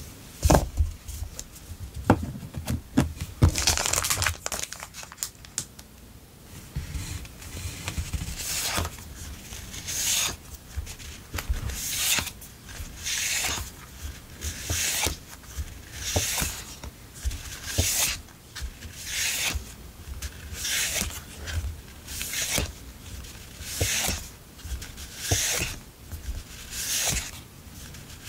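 Sheets of paper rustling as a stack of memo-pad and sticker sheets is leafed through one at a time, a crisp swish about every one and a half seconds. In the first few seconds there is busier handling of the stack, with a few sharp taps.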